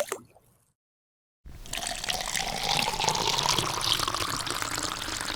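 A last water drop plops at the very start, then about a second and a half in water begins pouring into a container: a steady splashing hiss with a tone that rises as the container fills.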